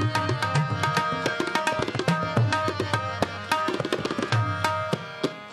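Tabla playing a busy rhythm, the bass drum's low notes bending in pitch, over a harmonium holding steady chords: an instrumental interlude between sung lines of Sikh kirtan.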